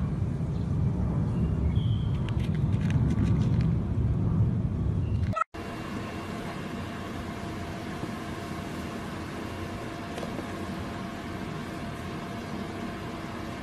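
Steady low rumble of background noise with a few sharp clicks, cutting off abruptly about five seconds in; after the cut a quieter steady hum with faint humming tones runs on.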